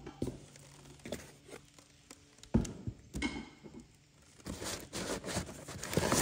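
Handling of a cardboard box: scattered knocks and clicks, one sharp knock about two and a half seconds in, then cardboard packing rustling and crinkling near the end as it is pulled out of the box.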